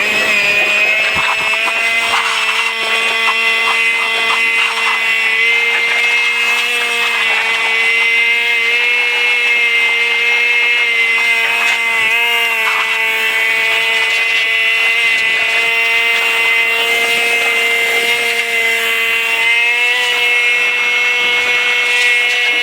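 John Deere 9500 combine harvester running at a steady speed, a constant mechanical drone topped by a high whine.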